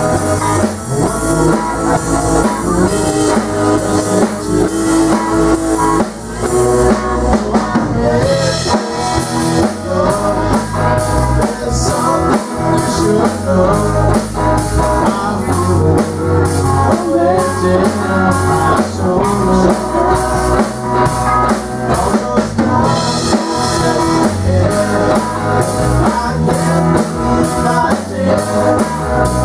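Live rock band playing: electric guitars over a drum kit, with the cymbals getting brighter about eight seconds in.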